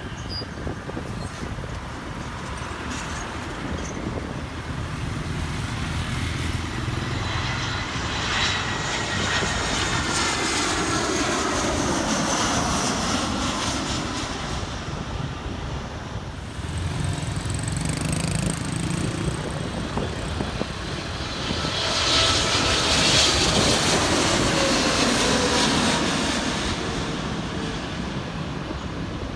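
Two twin-engine jet airliners passing low on landing approach, one after the other. Each swells into a loud jet rumble with a whine that falls in pitch as it goes by, the first around ten seconds in, the second, louder, around twenty-three seconds in.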